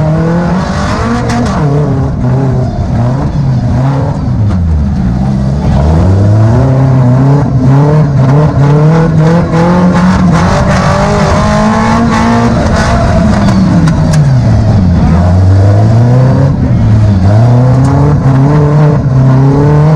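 Engine of a tubular-frame off-road buggy heard from on board, revving up and dropping back again and again as the throttle is worked, with scattered knocks and rattles. It gets louder about six seconds in.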